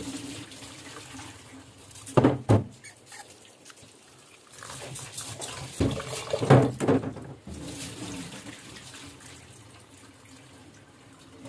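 Tap water running into a rice cooker's inner pot and splashing in a steel kitchen sink as rice is rinsed, with the cloudy rinse water poured off into the sink. A few louder thumps come about two seconds in and again around six to seven seconds in.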